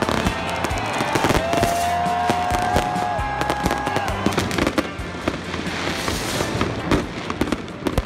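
Fireworks going off in rapid, irregular bangs and crackles, over background music.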